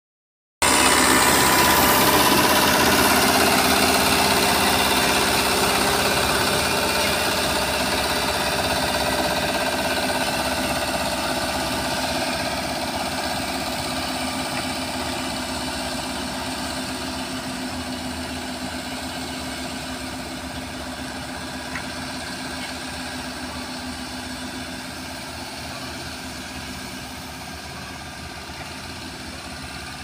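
Diesel engine of a single-drum road roller running steadily as the roller compacts a gravel road base, growing gradually fainter as it drives away.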